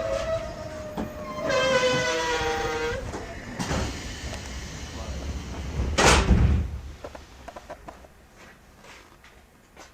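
A 50-series passenger coach train coming to a halt: steady pitched squealing in the first three seconds, then a short loud burst of noise about six seconds in, after which the carriage falls quiet with only faint knocks.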